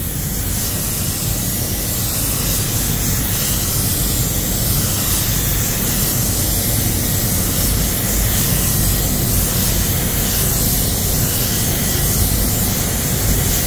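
Walcom Slim X Light 1.3 spray gun spraying paint with its fan opened fully: a steady, unbroken hiss of compressed air atomising the basecoat.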